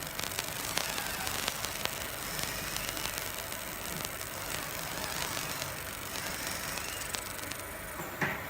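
Fiber laser marking machine deep-engraving brass: a steady hiss with scattered sharp clicks, and a brief louder noise near the end.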